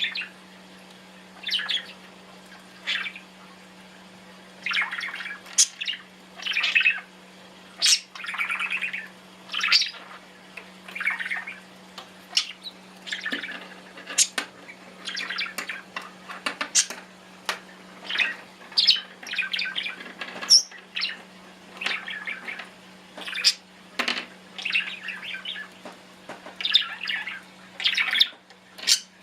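Budgerigar chattering and chirping in a string of short, warbling calls with the odd sharp squawk, a call every second or so.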